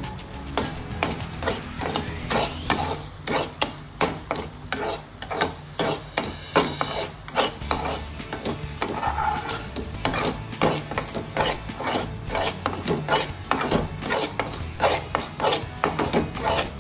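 Metal slotted spatula stirring and scraping thick wheat-flour halwa around a non-stick pan in quick repeated strokes, about three a second, with faint sizzling of the ghee underneath.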